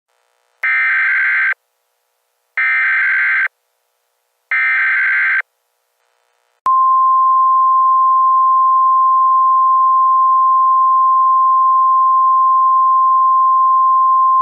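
Emergency Alert System SAME header: three identical bursts of screeching digital data tones, each just under a second long and about two seconds apart. After a short gap, a long steady single-pitch alert tone starts, the attention signal that comes before the spoken alert message.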